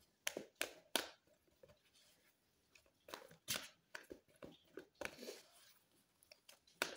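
A deck of tarot cards being shuffled by hand, with sharp snaps and slaps of the cards coming in irregular bursts: three quick ones in the first second, then scattered clusters.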